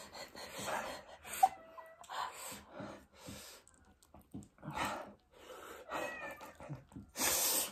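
A person breathing hard and hissing through the mouth, sucking air in against the burn of very spicy ramen. The breaths come in uneven bursts with a few squeaky whimpers, and the longest, loudest breath comes near the end.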